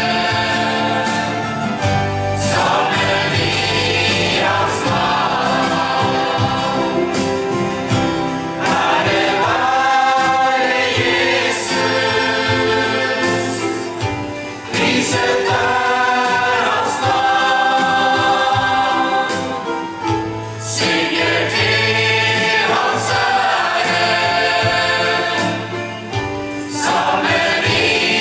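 Mixed choir of men and women singing a Norwegian gospel song in long sung phrases, with instrumental accompaniment underneath.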